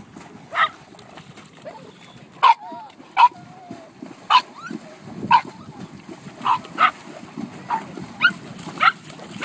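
A dog barking repeatedly in short, high yaps, about ten through the stretch, with a brief wavering whine around three seconds in. Underneath is a low, steady splashing of a pony wading through shallow lake water.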